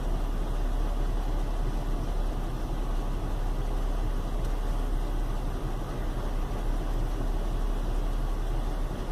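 Chevy Venture's 3.4-litre V6 idling steadily with a low rumble, not running smoothly: a rough idle that turned out to be caused by a failed hydraulic motor mount.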